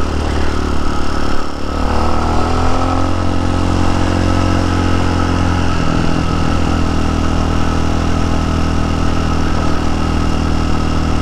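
TaoTao TBR7 motorcycle's single-cylinder engine running under way. The note dips briefly a little under two seconds in, rises as it picks up speed, then holds steady.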